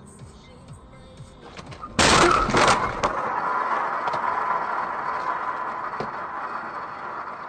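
A car collision recorded from inside the car: a sudden loud crash with breaking about two seconds in, followed by a steady hiss that slowly fades.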